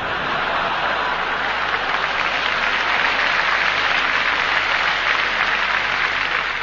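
Audience applauding, swelling to its fullest around the middle and starting to die away near the end.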